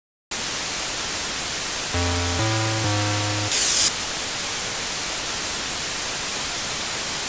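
Television static hiss that switches on suddenly, with three short low electronic tones in a row about two seconds in and a brief louder burst of hiss right after them.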